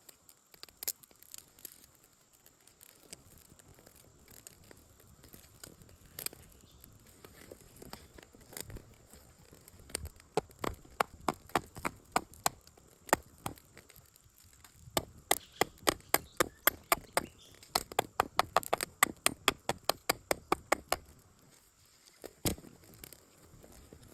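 A few scattered sharp knocks, then two long runs of sharp, evenly spaced knocks at about two to three a second, with a short pause between them. The runs stop a few seconds before the end, followed by one last knock.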